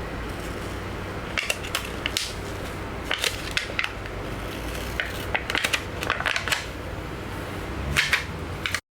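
Plastic screen-protector film being peeled off a tablet's glass screen, giving short crackling and clicking clusters every second or two over a steady background hiss; the sound cuts off suddenly near the end.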